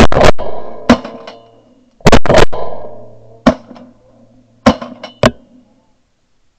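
A rapid volley of shotgun shots, about nine in five seconds, fired at a flock of ducks in flight. Some shots are louder and nearer and others fainter, each with a short echo dying away.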